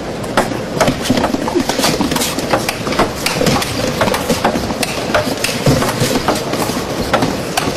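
Table tennis rally: a celluloid ball clicking sharply off the bats and the table in quick alternation, about two to three hits a second, until the rally ends near the end, over a steady background hall noise.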